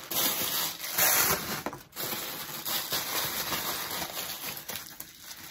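Gift packaging rustling and crinkling as it is handled, in several stretches of noisy rustle with short gaps.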